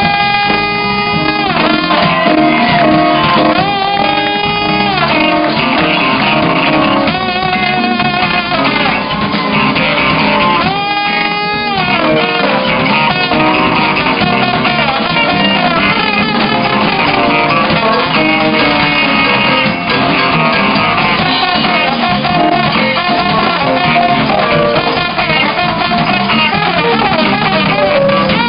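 Live funk band: trombone playing long held notes with slides into and out of them, over electric guitar and drum kit.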